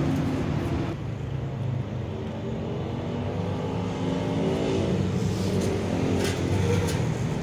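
A motor vehicle's engine running, steady throughout.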